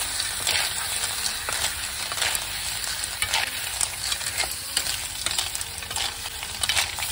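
River snails in their shells frying in a small steel kadai, sizzling steadily while a steel ladle stirs them, the shells clicking and scraping against the pan again and again.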